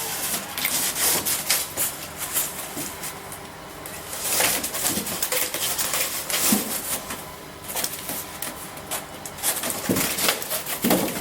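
Cardboard display divider pieces being slotted together by hand: irregular scraping and rustling, with a few short squeaks of board rubbing on board.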